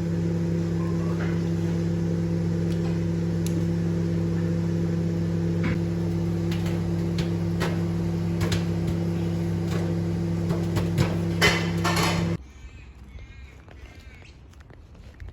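Steady low electrical hum, loud and unchanging, with scattered clicks and knocks on top; it cuts off abruptly about twelve seconds in, leaving quieter faint knocks.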